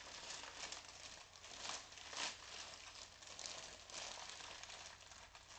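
Plastic courier mailing bag crinkling and rustling as it is handled and pulled open by hand, with irregular louder rustles, the loudest about two seconds in.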